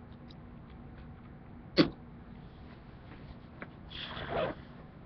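A single sharp knock about two seconds in, then about half a second of rustling near the end, with a few faint clicks between: umpire gear being handled and set down.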